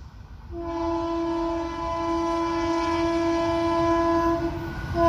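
Horn of an Indian Railways WAP-4 electric locomotive on an approaching express, sounding one long, steady note that starts about half a second in and grows louder, with a short dip near the end.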